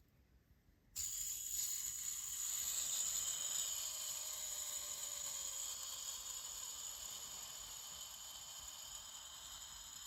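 Fidget spinner on a C bearing set spinning about a second in: a sudden high-pitched whir that slowly fades as the spin dies. It is not rubbing; this short spin is typical of C bearings, which only give about 15 seconds.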